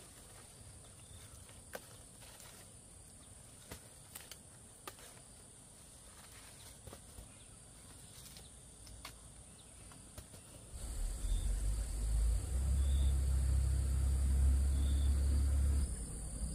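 Insects droning on one steady high pitch, with a few scattered clicks. About two thirds of the way in, a loud low rumble takes over for about five seconds and drops back near the end.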